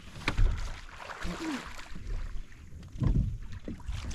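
Water splashing and knocks against a plastic fishing kayak, uneven, with two louder hits (one just after the start and one about three seconds in), as a bass is brought in to the boat.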